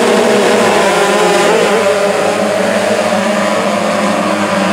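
A pack of supermini motocross bikes revving hard together as they launch off the start gate and accelerate away down the start straight.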